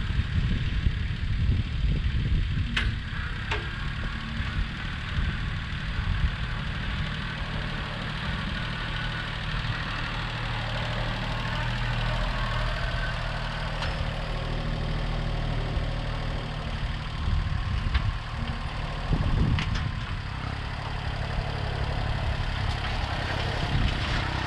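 International Harvester 234 compact tractor's diesel engine running steadily as the tractor drives with its front loader, with a few faint clicks now and then.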